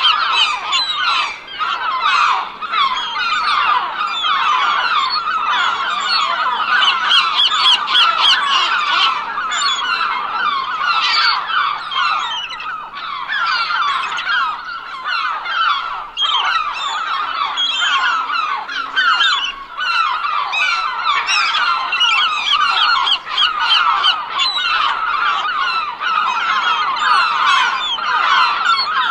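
A flock of seagulls calling all at once: many short, overlapping squawks and cries in a continuous chorus, briefly thinning a few times.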